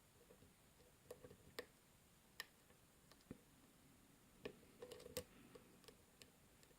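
Faint, irregular clicks of a lock pick working the pins of a six-pin euro cylinder lock, with a small cluster about five seconds in.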